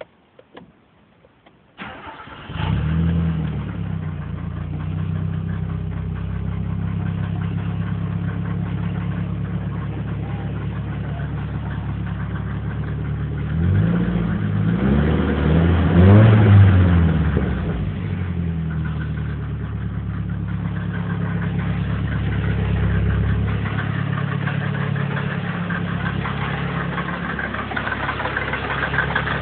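Nissan CA18DET turbocharged four-cylinder engine cranking and catching about two seconds in, then idling, revved once around the middle and settling back to idle. The owner suspects an engine knock.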